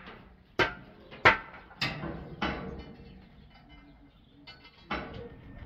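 Sharp knocks from building work, four about half a second apart, then a pause and one more near the end.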